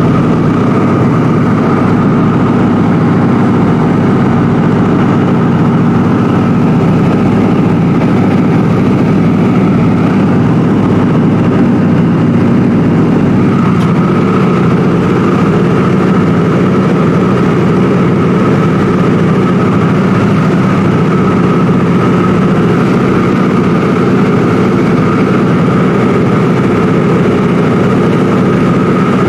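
Cabin noise of a Ford Tri-Motor in flight: the loud, steady drone of its three radial engines and propellers, with a slight change in tone about halfway through.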